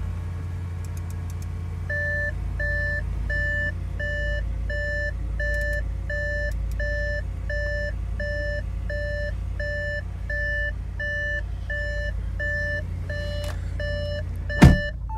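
Audi S6's V8 engine idling steadily while the car's warning chime beeps fast and regularly over it from about two seconds in, the gong that goes with the dash message "Switch off ignition before leaving car". A single loud thump just before the end.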